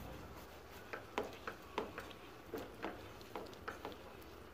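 Faint, irregular clicks and light pops from a frying pan of cucumber and green chilli cooking in a little liquid while a spatula stirs them, about one to three clicks a second.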